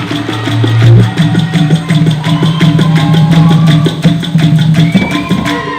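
Dikir barat ensemble playing its closing passage: fast, even percussion under a long held low note, stopping abruptly near the end.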